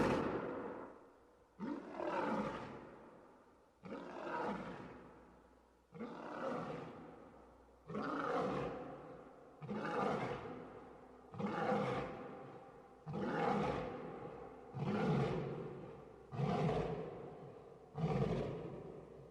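Lion roaring over and over, about one roar every two seconds; each roar starts abruptly and fades away.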